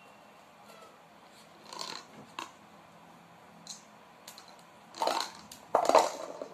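Light plastic basket rocking and clattering against a hard floor as a kitten tips it and jumps off it: a few light taps, then two loud clatters near the end.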